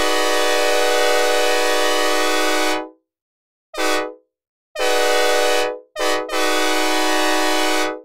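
Synthesizer recreation of a Nathan K5LA five-chime locomotive air horn, dry with no reverb, sounding a chord in separate blasts: a long blast of nearly three seconds, a short one, another long one, then a short one running straight into a final long blast. Each blast starts and cuts off cleanly.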